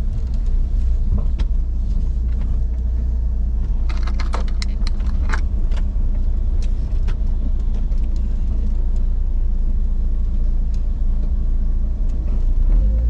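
Car engine and tyre noise heard from inside the cabin as the car creeps along a wet cobbled street, a steady low rumble. A short run of sharp rattling clicks comes about four to five seconds in.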